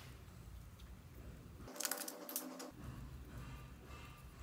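Plastic glitter shaker tubes handled over slime: a short cluster of clicks and rattles about two seconds in, over a low hum.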